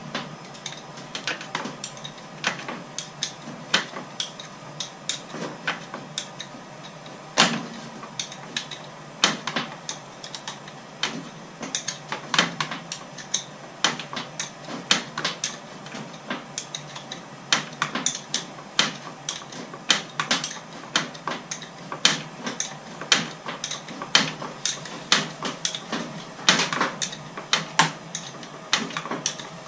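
Hand tools working on metal motorcycle parts: an irregular run of sharp clicks and clanks, one to three a second.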